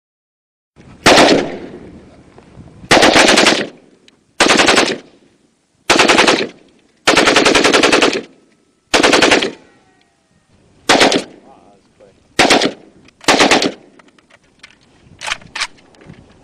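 AK-47 assault rifle firing a series of short automatic bursts, about ten in all. Each burst is a rapid string of shots lasting up to about a second, the first trailing off in a long fading tail. The last bursts near the end are very short.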